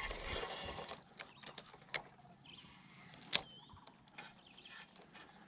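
Spinning reel being cranked, its gears whirring, for about the first second, then a few sharp clicks from handling the reel and rod, the loudest a little over three seconds in.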